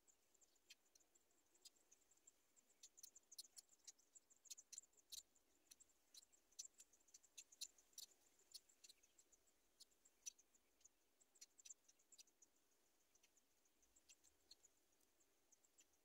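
Near silence: faint outdoor ambience with a steady high insect drone and many scattered, irregular high ticks, densest in the middle.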